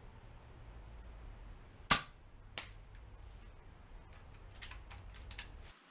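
A single sharp click about two seconds in, a softer click just after, and a few faint ticks near the end, over a low steady hum that cuts off abruptly.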